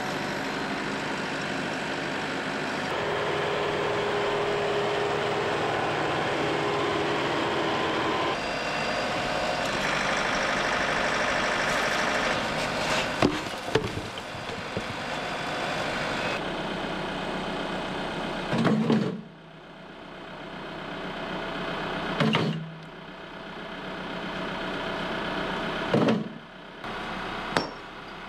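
TYM T654 tractor's diesel engine running as its grapple carries concrete blocks and dumps them, with a couple of sharp thuds from the blocks dropping about halfway through. Then a sledgehammer striking concrete blocks, four heavy blows in the last ten seconds, each a sharp hit with a short low ring.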